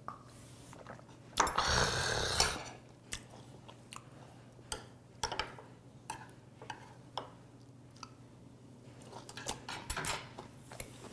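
A shot of soju knocked back, followed by a loud breathy exhale lasting about a second. Then scattered clicks of chopsticks against the dishes, and chewing of sea hare meat near the end.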